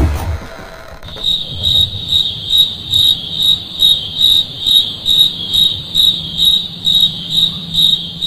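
Cricket chirping sound effect: evenly spaced high chirps, about two a second, starting about a second in over a faint steady low hum, after a music cue cuts off at the start.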